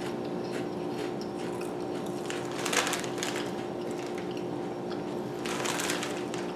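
Potato chips being chewed with the mouth closed: faint, scattered crunching that comes in two short spells, near the middle and again near the end, over a steady low hum.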